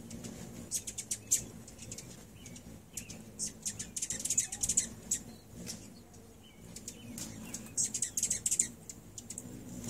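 A group of hummingbirds squabbling at a feeder: rapid, very high twittering chips in three bursts, about a second in, around four to five seconds, and around eight seconds, over the steady hum of their hovering wings.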